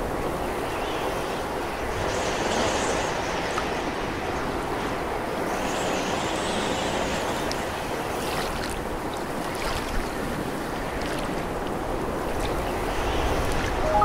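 Steady rushing outdoor ambience of wind and water, an even wash of noise, with a brief click about ten seconds in.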